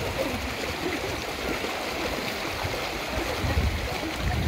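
Shallow, rocky mountain stream rushing steadily over stones.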